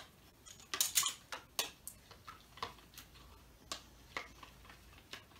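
A metal spoon clicking and tapping against a plastic bowl in irregular knocks, with a cluster about a second in, while stirring glue and contact lens solution that is thickening into slime.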